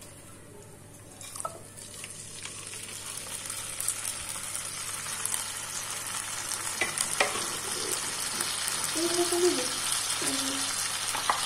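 Chicken curry poured from a bowl into hot oil in a nonstick kadai, sizzling and frying, the sizzle building steadily louder. A few sharp knocks and scrapes of a utensil on the pan.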